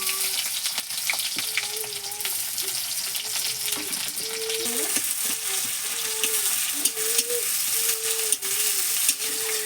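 Chopped onion sizzling in hot oil with whole spices in a karai, stirred and scraped with a spatula.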